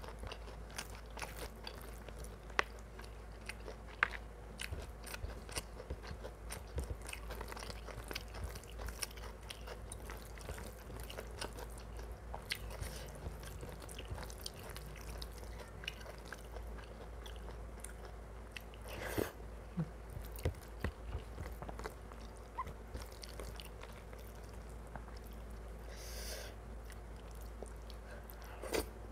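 Close-miked chewing and biting of mutton curry and rice: a steady run of small crunches and mouth clicks, with a few sharper, louder bites along the way.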